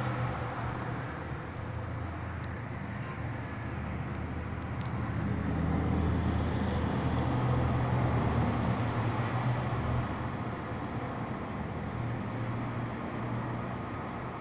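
Steady roar of highway traffic, swelling a little about halfway through, with a low steady hum underneath.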